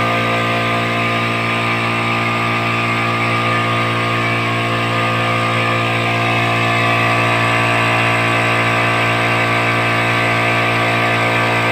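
Small-tank electric air compressor running steadily under load with a loud, even hum, filling its tank with air as the pressure builds.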